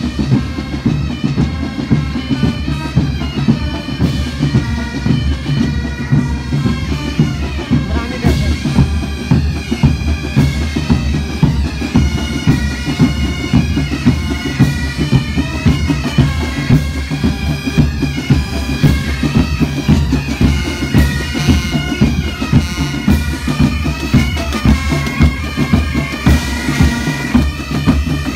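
Bagpipe and drum music: pipes playing a melody over a steady drone, with a regular drumbeat.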